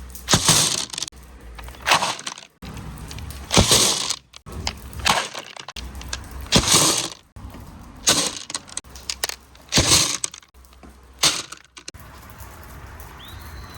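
Marbles clattering through a wooden marble run with right-angle turns: short bursts of hard clacks and rolling about every second and a half.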